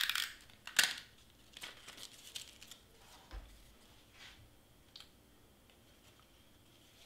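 Cardstock pieces rustling and scraping as they are handled and pressed together, loudest in the first second, then quieter rustles and a few light taps.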